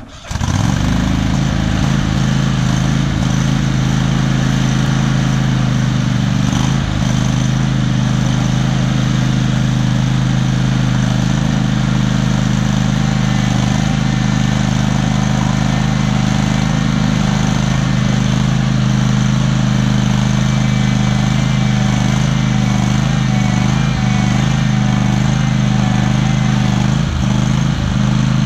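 Riding lawn mower engine running steadily at an even speed.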